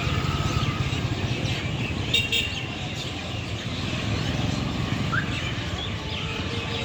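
A flock of birds chirping and calling together in a tree, many short overlapping calls, with one louder call about two seconds in. A steady low rumble runs underneath.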